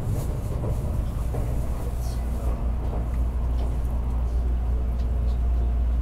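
Steady low rumble and hiss of a Tokaido Shinkansen train running at speed, heard from inside a passenger car.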